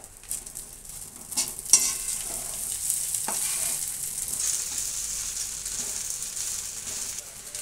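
Sago pearls and crushed roasted peanuts sizzling in hot oil in a metal kadhai while a metal spoon stirs and scrapes them, with a few sharp clicks of the spoon against the pan, the loudest a little under two seconds in.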